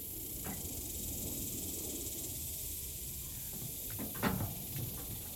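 Steady high-pitched drone of cicadas in the trees, with a low rumble underneath and a brief scuff about four seconds in.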